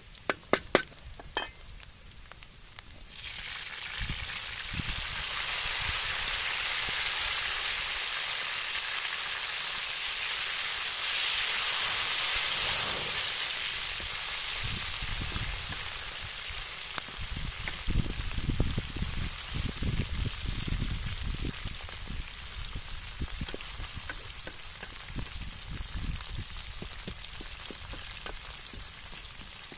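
Onions and tomatoes frying in a large metal pan over a campfire, a steady sizzle that swells around the middle, stirred with a wooden spatula. A few sharp clicks come in the first second or two.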